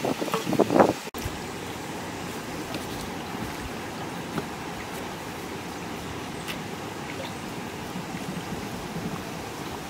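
Clay lid being settled onto an earthenware pot: a few scraping knocks of pottery on pottery in the first second, the last the loudest. The sound drops out for an instant, then a steady outdoor hiss follows with a few faint ticks.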